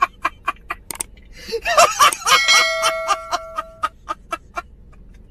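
A man laughing hard in a rapid string of short breathy bursts, about four or five a second. In the middle a steady high-pitched note is held for about a second and a half, and the bursts die away near the end.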